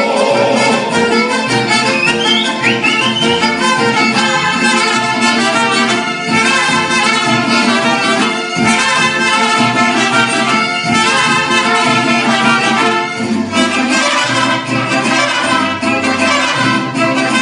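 Mariachi band playing an instrumental passage, violins and trumpets together over a steady strummed rhythm, with no singing.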